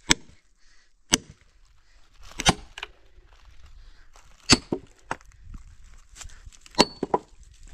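Firewood being chopped with an axe: sharp wooden chops at uneven intervals, about nine in all, some in quick runs of two or three.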